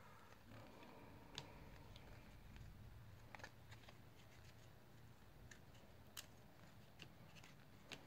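Faint, scattered clicks and snaps of 1993 Upper Deck baseball cards being flipped one at a time through a pack in the hands, with near silence between them.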